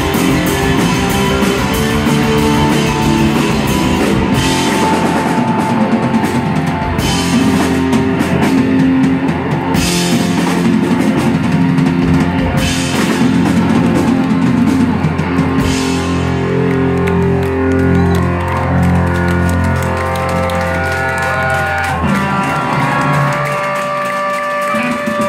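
Live rock band playing loud, with electric guitars, bass and a drum kit crashing its cymbals. Near the end the drums and deepest notes drop out and held notes ring on as the song winds down.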